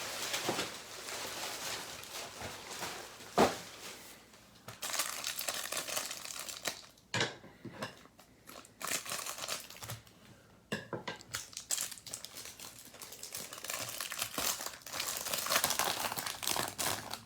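Plastic wrapping on a stack of trading cards crinkling and tearing as it is opened by hand, in irregular rustling bursts with a few short pauses.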